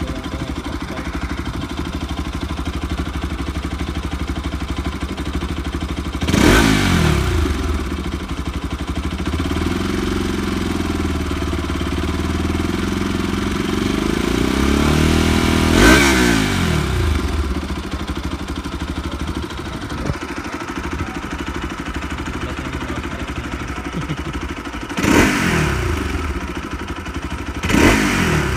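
Kawasaki RS200 single-cylinder engine on its stock exhaust, idling and revved four times: a quick blip about six seconds in, a slower climb to a peak around the middle, and two more quick blips near the end, each dropping back to idle.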